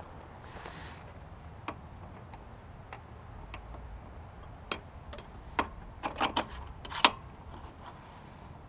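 A handful of sharp, separate metallic clicks and clinks from tools and engine parts being handled during a scooter teardown. There is a quick run of several clicks about six seconds in, and the loudest click comes about a second later.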